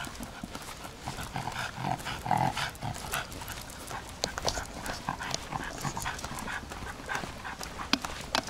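Miniature schnauzer moving about on a walk, with irregular light clicks and taps of its steps and claws.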